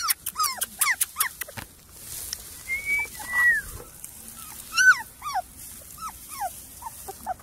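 Portuguese Water Dog–Standard Poodle cross (Porti-Doodle) puppy whimpering and yipping: short, high, falling cries in quick runs, with a couple of longer drawn-out whines about three seconds in. A few sharp clicks come in the first second or so.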